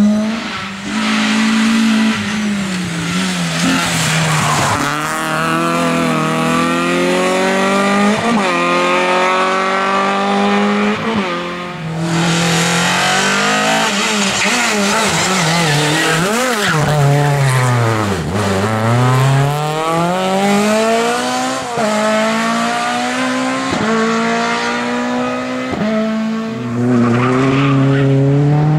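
Rally cars driven hard on tarmac, one after another: engines revving high and climbing through the gears, dropping sharply as they brake for a corner, then pulling up again, with tyre squeal.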